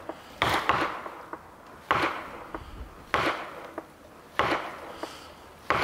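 Heavy blows of a hand striking tool on wood at the base of a standing tree being felled, five evenly spaced strikes about a second and a quarter apart, each with a short ringing tail.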